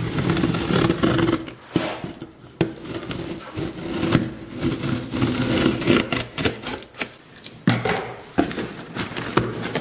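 Utility knife blade slitting packing tape along the seam of a cardboard box, a rasping scrape broken by clicks and knocks of the blade and hand on the cardboard. Near the end the box flaps are pulled open, with cardboard rustling and scraping.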